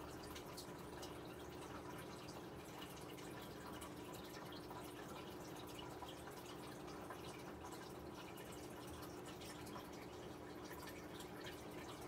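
Faint water dripping, with many small scattered ticks, over a steady low hum.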